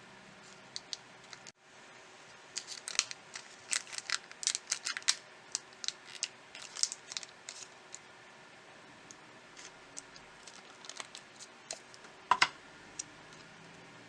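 Small light clicks and scratches of hand tools and plastic parts being worked on a smartphone during disassembly. They come thick for several seconds, then scattered, with a sharper click near the end, over a faint steady hum.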